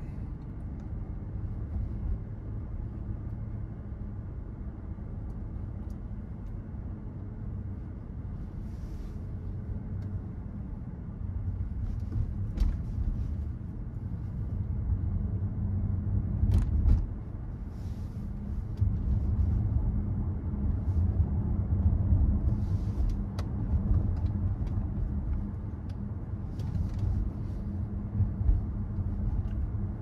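A BMW 760's V12 engine and tyre rumble while the car is driven, growing louder about a third of the way in and again a little past the middle, with a few sharp knocks.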